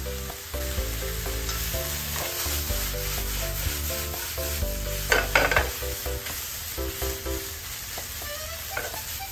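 Sliced beef, onions and mozzarella sizzling in a nonstick frying pan as they are stirred and tossed with a plastic spatula, with a short cluster of scrapes about five seconds in. Background music plays underneath.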